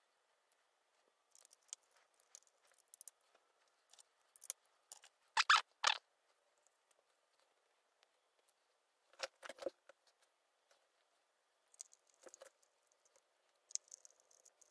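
Scattered small clicks, taps and scrapes of hands and small tools working on an opened Microsoft Surface Pro 4 as its heatsink and copper shield go back in. There are louder sharp knocks about five and a half seconds in and again about nine and a half seconds in.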